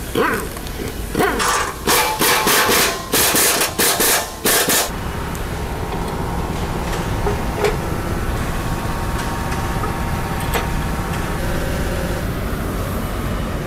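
About eight short, loud bursts of a power tool in the first five seconds, then a steady low workshop hum with a few light clicks.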